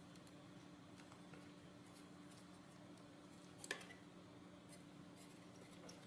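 Near silence with a steady low hum and faint ticks of small parts being handled; one sharp click a little past halfway as the robot-car chassis plate and its mounted gear motor are picked up and handled with the screwdriver.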